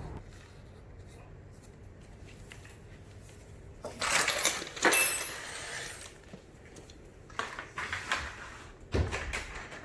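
Small metal objects clattering and clinking, loudest in a burst about four seconds in, followed by a few lighter clicks and knocks near the end.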